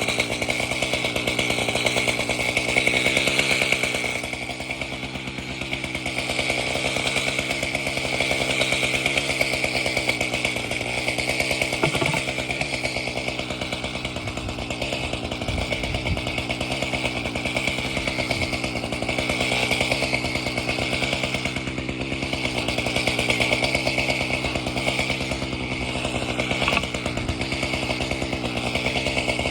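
Chainsaw engine idling steadily while it warms up after sitting in a cold shed, with only slight rises and falls in loudness.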